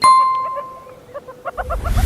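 A sharp bell-like ding rings out at the start and fades over about a second, over meerkats chirping in a fast series of short calls. A low rumbling whoosh swells in near the end.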